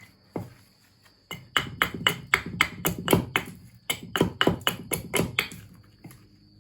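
Knife blade shaving a hard stick of fatwood, in quick repeated scraping strokes about four a second.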